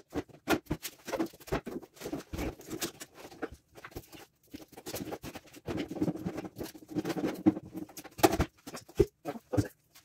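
Irregular knocks, scrapes and rattles of an over-the-range microwave being lifted and hooked onto its wall mounting plate, with a cluster of louder knocks about eight seconds in.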